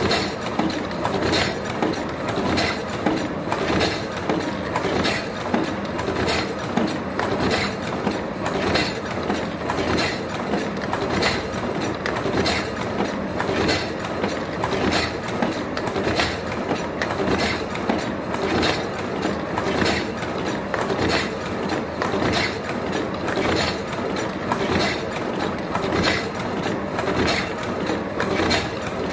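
Automatic two-line siomay (dumpling) making machine running, clacking in a steady rhythm of about one and a half strokes a second over continuous mechanical noise.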